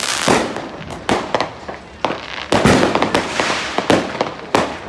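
Many consumer fireworks going off at once: near-continuous bangs and crackling reports, overlapping with no real pause.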